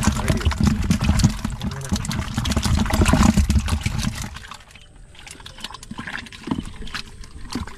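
Live fish splashing and thrashing in shallow water in a plastic tub, with water sloshing and dripping. The splashing is loud at first, then dies down to a few scattered drips and knocks about four and a half seconds in.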